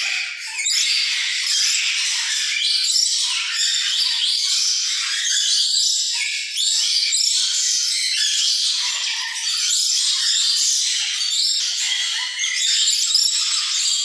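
Many caged birds chirping and chattering at once, a dense, continuous chorus of high-pitched calls.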